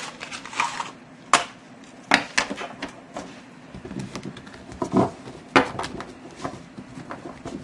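Two decks of tarot cards being handled and knocked together in the hands, giving a series of sharp, irregular clicks and taps of cardstock.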